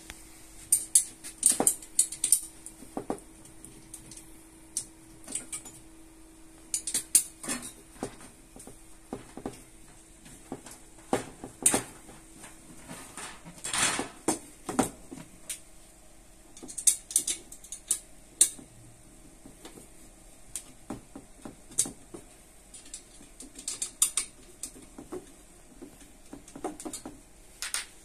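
Irregular clicks and clinks of a screwdriver and screws as the screws holding a washing machine rack are loosened.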